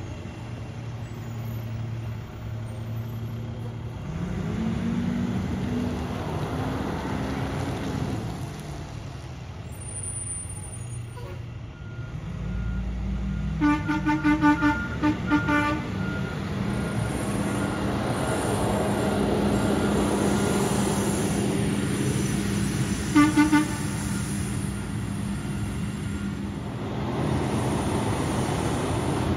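Rear-loader garbage truck diesel engines running steadily, with a rapid series of short horn toots about halfway through and a brief second burst of toots several seconds later.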